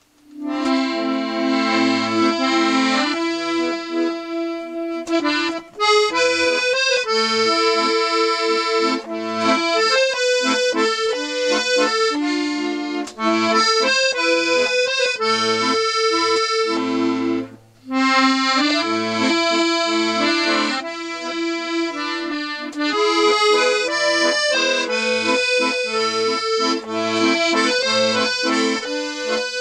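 Restored Galanti piano accordion playing a tune, a melody on the treble keys over bass notes, its reeds freshly cleaned, re-waxed and tuned. The playing breaks off briefly twice, about six and eighteen seconds in.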